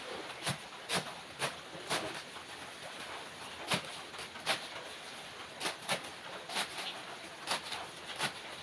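Kitchen knife chopping a bunch of green leaves and banana-stem pieces on a wooden block: about a dozen sharp chops at an uneven pace, one or two a second.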